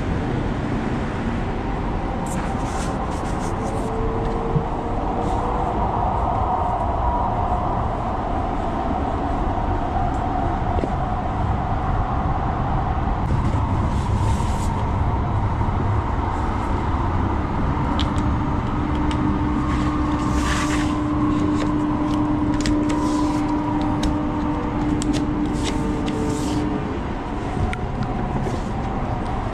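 Metro light-rail train running between stations, heard from inside the car: a steady rumble of wheels on the rails, with occasional light clicks and a steady tone held for several seconds past the middle.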